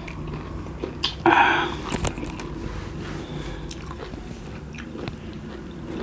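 People biting and chewing pieces of raw lemon, with scattered wet mouth clicks and a brief louder noise about a second in.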